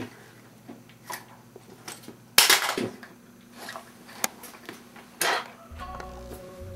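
A scatter of sharp knocks and clatters at irregular intervals, the loudest about two and a half seconds in. Steady low music comes in near the end.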